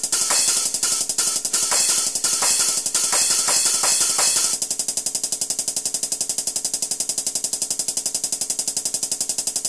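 Background music with a drum-kit beat of bass drum and hi-hat; about halfway through it thins to a fast, even ticking rhythm.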